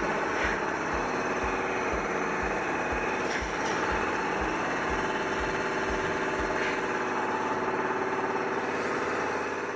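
Loud, steady machinery noise of a heavy engine running, with a regular low beat under it; it fades out near the end.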